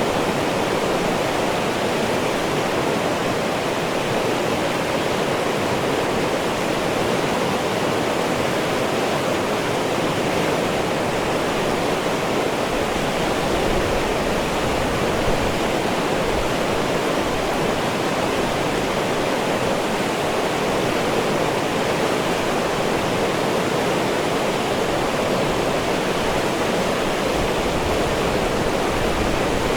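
Rushing white water of a fast, rapids-strewn river: a steady, unbroken rush, fullest in the middle pitches.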